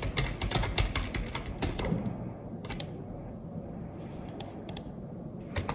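Fast typing on a computer keyboard for about two seconds, then a few scattered key clicks before the typing stops.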